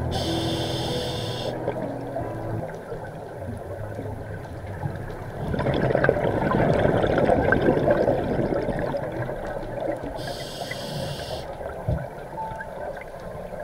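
Scuba diver breathing through a regulator underwater: a short hissing inhale through the demand valve, then a long bubbling exhale, and another hissing inhale about ten seconds in.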